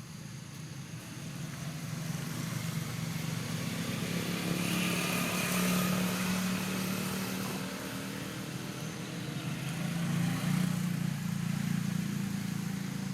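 Motor vehicle engine noise, a steady low hum that swells twice as vehicles pass.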